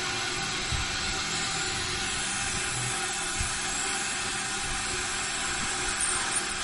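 Steady hissing suction of a dental saliva ejector mixed with the water spray of an ultrasonic scaler during tartar removal from the lower front teeth, with a few brief high scratchy ticks near the end.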